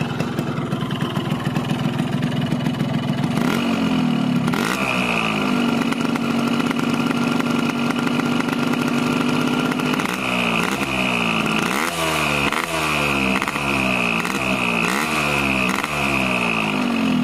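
Yamaha RX-King two-stroke single-cylinder engine, fully warmed up, idling and then revved: a held high rev for several seconds, then a quick run of throttle blips. The owner judges the sound normal.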